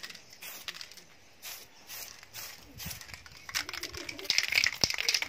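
An aerosol spray-paint can being shaken, its mixing ball rattling fast inside. Faint short hisses come before it, and the rattling starts about three and a half seconds in, growing louder.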